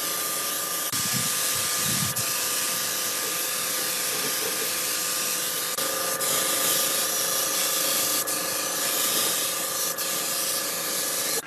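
A steady spraying hiss with a faint steady whine beneath it, and a couple of low bumps about a second in.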